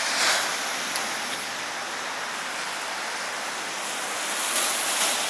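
Steady hiss of traffic on a rain-wet street, tyres on wet asphalt, growing a little louder toward the end.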